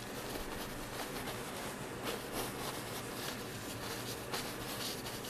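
Paintbrush dabbing and stroking oil paint onto a canvas: a few soft, irregular scratchy strokes over a steady low room hum.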